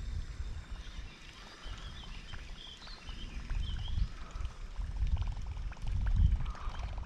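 Outdoor ambience on open water: a low wind rumble on the microphone that swells about six seconds in, with a few short bird chirps in the first half and faint fine ticking later on.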